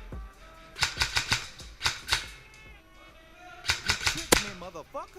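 Rap music track with sharp cracks in quick irregular runs, about a second in and again near four seconds in, from an airsoft replica firing.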